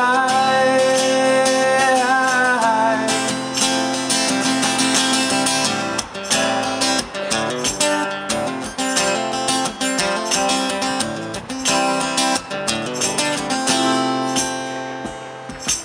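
Steel-string acoustic guitar strummed in a steady rhythm, an instrumental passage between sung lines. A man's voice holds a wavering sung note over the first couple of seconds, then the guitar plays alone.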